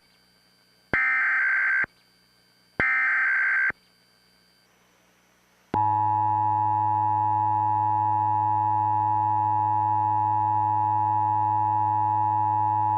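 Emergency Alert System test signal: two SAME digital header bursts of about a second each, then after a short gap the steady two-tone EAS attention signal begins about six seconds in and holds.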